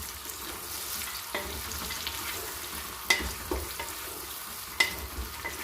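Sliced onions sizzling steadily in hot oil in a metal pressure cooker as they are fried toward golden brown. A spoon clinks against the pot three times while the onions are stirred.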